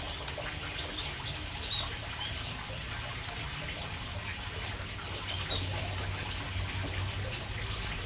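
Canaries in an aviary giving short high chirps, one or two every second or so, over a steady low hum and hiss.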